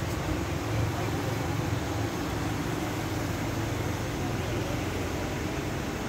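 Steady outdoor background noise: an even hiss over a low hum, with no distinct events.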